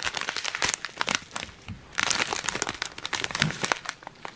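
Small clear plastic zip-lock bags of round diamond-painting drills crinkling as they are shuffled and handled, a dense run of irregular crackles that eases briefly midway.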